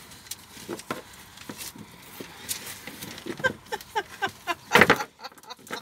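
A rusty metal chain clinking and rope rustling as a tangled coil of line with chain running through it is handled and lifted. The sound comes as scattered short clicks, with the loudest burst about five seconds in.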